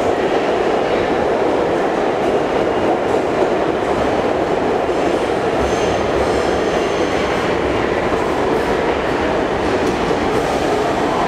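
Kawasaki R62 subway train pulling into an underground station, a steady loud rumble of steel wheels on rail, with a faint high squeal about six seconds in.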